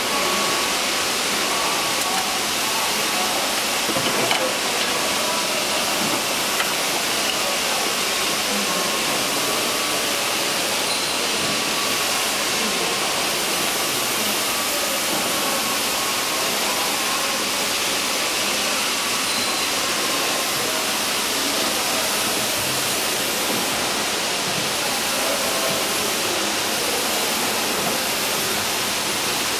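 Steady, even hiss of background noise.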